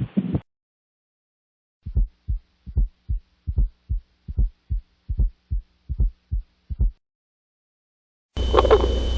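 Recorded heart sounds as heard through a stethoscope: low lub-dub pairs repeating about every 0.8 seconds, around 75 beats a minute, with nothing audible between the beats. A short gap of silence comes before and after the beats, and near the end a different, noisier recording with a steady hum begins.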